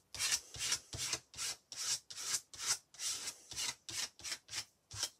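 Glue stick rubbed back and forth over paper, scraping in quick strokes of about three a second as glue is spread over a paper collage.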